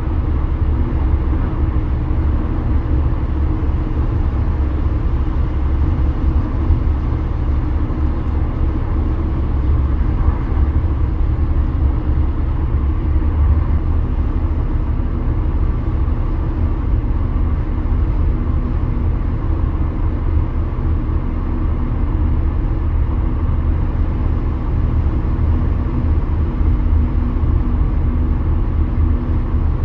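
Steady road noise of a car cruising at highway speed, heard from inside the cabin: a continuous low rumble of tyres and engine with a faint steady hum.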